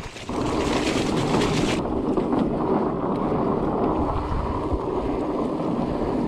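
Wind buffeting the bike-mounted camera's microphone over the rumble of knobby mountain bike tyres rolling fast on a dirt singletrack, brakes let off. A high hiss on top cuts off suddenly about two seconds in, leaving the steady rumble.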